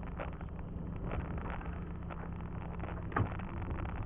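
A small 18-horsepower sailboat engine idling steadily, with a single sharp knock about three seconds in.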